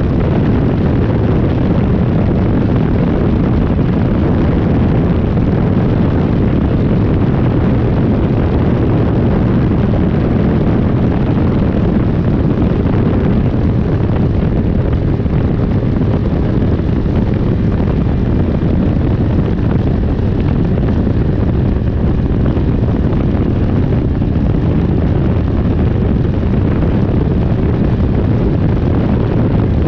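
Rotax 503 DCDI two-cylinder two-stroke engine running loud and steady at constant power, with no change in pitch or level.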